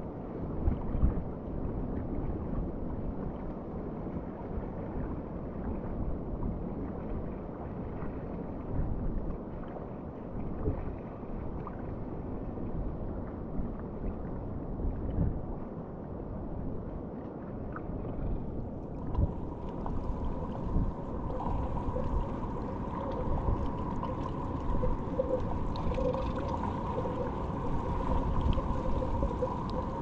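Muffled churning water noise picked up by a camera under water while snorkeling. About two-thirds of the way through, a steady two-pitched hum joins it.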